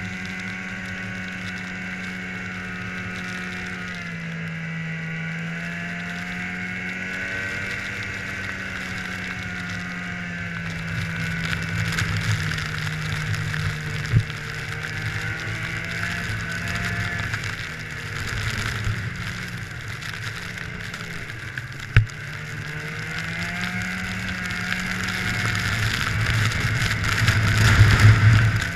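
Snowmobile engine running as the sled rides along, its pitch rising and falling with the throttle and climbing louder near the end. Two sharp clicks stand out partway through.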